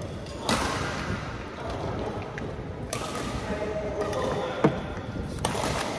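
Badminton rally: sharp racket-on-shuttlecock hits every second or two, ringing in a large hall, with the loudest smack near the end.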